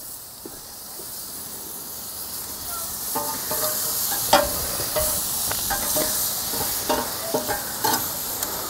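Tri-tip steak sizzling on the hot grate of a Primo ceramic charcoal grill during its final sear. The sizzle grows louder over the first few seconds, with sharp crackles and pops from about three seconds in.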